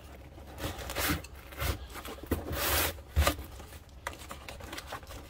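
A rolled waxed-canvas socket bag loaded with sockets being pushed down into its tall cardboard box: several short scraping rubs of canvas against cardboard, a longer scrape just before three seconds in, then a sharp knock.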